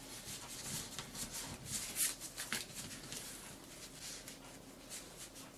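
A sheet of origami paper rustling as it is folded back and forth along a crease to loosen it, a run of uneven crinkles with the sharpest one about two seconds in.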